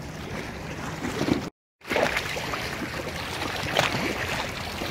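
Small waves lapping and splashing against a rocky riverbank, with wind rumble on the microphone. The sound drops out completely for a moment about a second and a half in.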